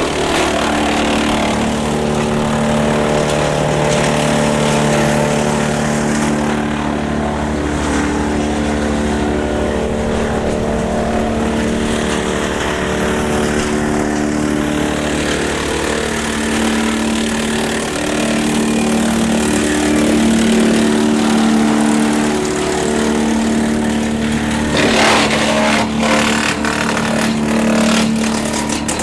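Tractor engine running steadily under load, turning a Woodland Mills TF810 PRO PTO wood chipper. Near the end comes a burst of noise and a run of sharp cracks, as small branches are chipped.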